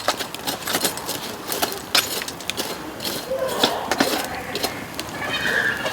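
Bamboo fire crackling, with irregular sharp pops and snaps from the burning bamboo.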